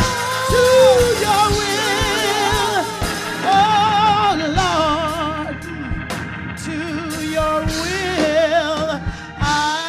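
Live gospel music: singing with a wavering vibrato over a band with a steady bass line and regular drum beats.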